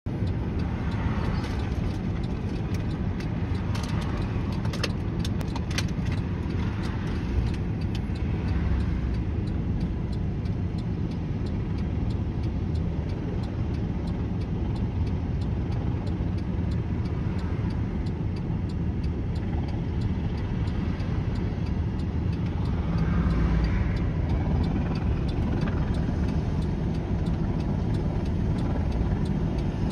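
Steady low rumble of a car on the road, heard from inside, mixed with the rotor and turbine engines of a Boeing AH-64 Apache helicopter hovering low as it comes in to land.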